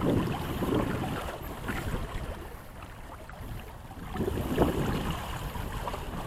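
Wind buffeting the microphone with water sloshing against a sailboat's hull; it eases for a second or two in the middle, then picks up again.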